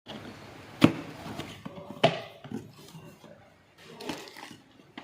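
Unboxing handling of a boxed soldering station and its packaging: two sharp knocks about one and two seconds in, then lighter taps with rustling between them.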